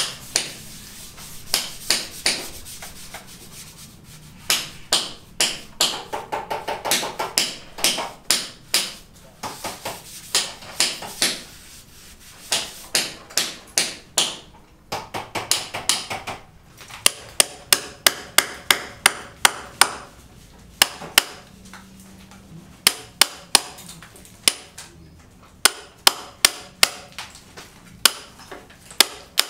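Hammering: sharp blows in quick runs of several strokes a second, broken by short pauses, with a ringing tone behind some of the runs.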